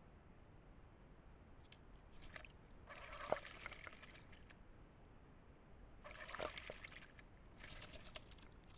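Eurasian jay bathing in a shallow pool: bouts of splashing and wing-fluttering in the water, first briefly about two seconds in, then strongest around three and six seconds, and once more near the end.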